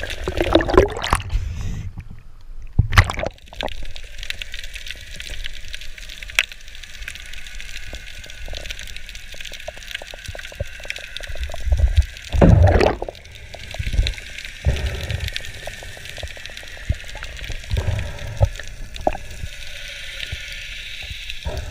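Muffled water sound picked up by a submerged diving camera: sloshing and gurgling with a steady hiss. Louder rushes come about a second in, about three seconds in, and loudest around twelve to thirteen seconds in.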